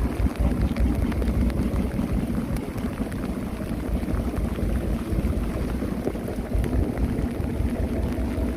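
Heavy rain at sea pelting an open fishing boat: a steady rumbling hiss with scattered sharp clicks of drops.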